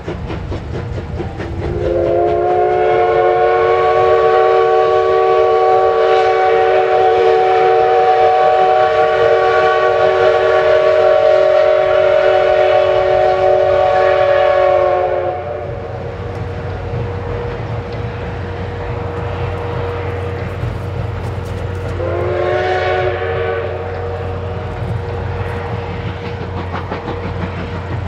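Steam whistle of the C56 steam locomotive: one long blast lasting about thirteen seconds, then a short blast about seven seconds later, over the steady low rumble of the train running.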